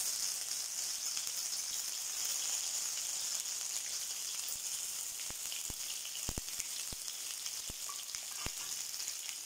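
Stuffed small eggplants sizzling as they are laid into hot sesame oil in a kadai: a steady frying hiss. A few light knocks come from about five to eight seconds in, as more eggplants are set down in the pan.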